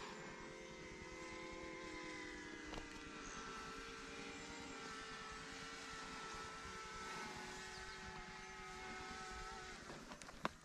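A motor drones with a steady pitched hum that dips slightly in pitch about three seconds in and stops near the end. A single sharp click comes just before the end.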